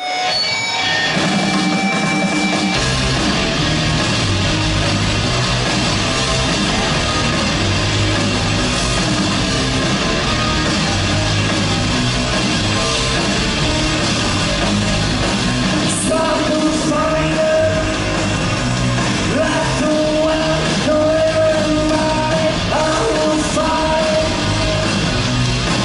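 Three-piece rock band playing live: distorted electric guitar, bass and drums at full volume, with the low end filling in about three seconds in. A sung vocal line joins from about sixteen seconds in.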